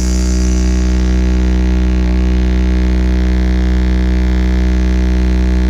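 Loud, steady electronic bass drone played through a large DJ sound system: a deep, unbroken hum with a stack of unchanging higher tones above it and no beat.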